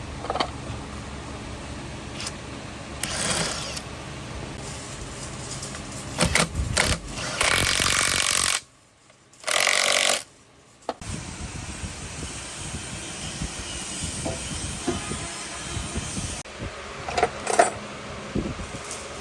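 Workshop noise from hand work on an old diesel engine: scattered metal clanks and knocks. Around the middle there are two loud rushing noise bursts of about a second each, cut short by abrupt near-silent gaps.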